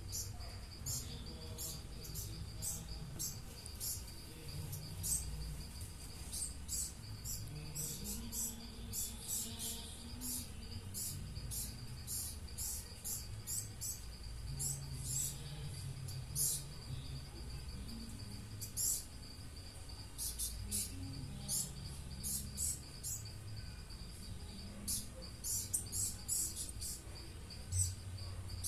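Two small birds chirping over and over in short, sharp high notes at irregular intervals, over a steady high-pitched insect drone and a low background rumble.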